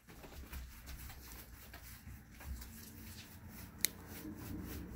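Quiet room sound with faint rustling and scattered soft ticks, and one sharp click near the end.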